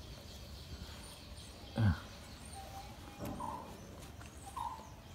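Quiet outdoor background with a few faint, short high bird chirps. One short spoken syllable with falling pitch comes just under two seconds in.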